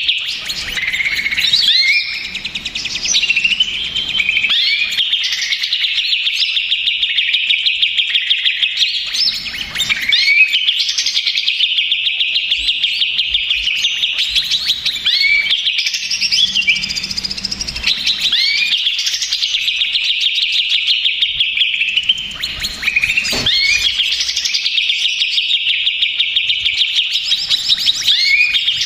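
Cucak ijo (green leafbird) in agitated, noisy song: a fast, rattling chatter run together with short rising whistles, with hardly a pause.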